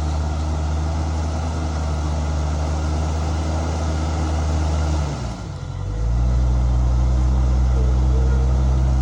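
An off-road vehicle's motor runs with a steady low drone during a winch recovery from a mud hole. About five and a half seconds in the drone dips, then comes back louder and lower-pitched, as if under heavier load.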